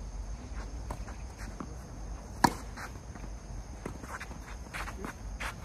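Tennis racket striking the ball: one sharp pop about two and a half seconds in, the loudest sound, with fainter taps of ball bounces and shoes on the hard court around it. A steady high-pitched hum runs underneath.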